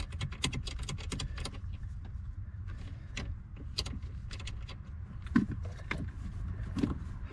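Socket ratchet clicking rapidly as the 10 mm nut on a car battery's negative terminal clamp is loosened, stopping about a second and a half in; scattered metallic clicks and taps follow, over a steady low hum.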